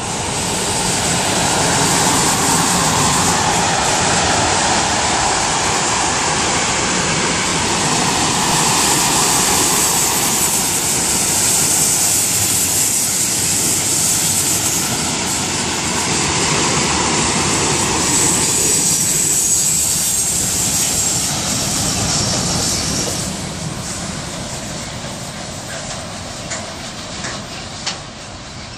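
Freight train passing close: an electric locomotive and then a long line of covered wagons rolling by, with the steady noise of wheels on rails and a high hiss. It fades off about three quarters of the way through.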